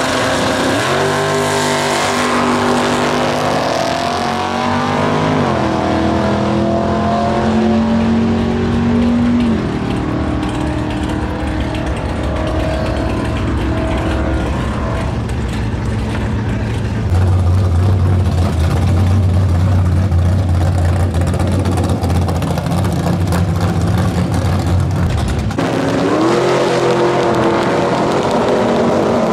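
Drag-racing muscle cars launching hard off the start line, a red Chevrolet Nova and another car, engines revving up in rising pitch with gear shifts as they pull away down the strip. A loud steady idle follows, then near the end a teal first-generation Chevrolet Camaro launches and accelerates away.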